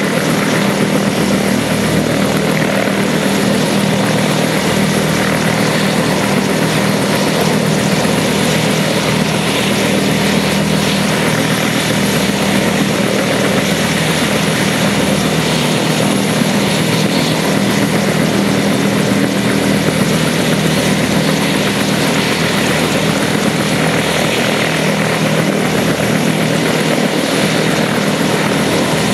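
Bell UH-1H Huey helicopter running steadily on the ground, its turboshaft engine and turning main and tail rotors holding an even, unchanging sound.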